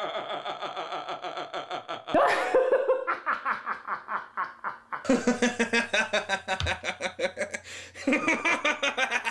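Men laughing hard, one after another, each in a quick string of ha-ha pulses. The laughter changes voice abruptly about two, five and eight seconds in.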